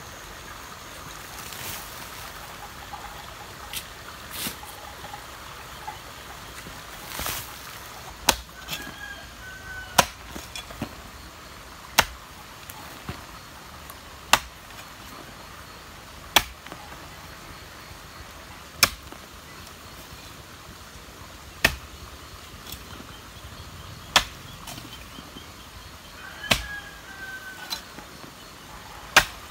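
Iron hoe blade chopping into hard clay soil, one sharp strike about every two seconds, over a steady hiss. Softer, irregular thuds come before the strikes settle into a rhythm.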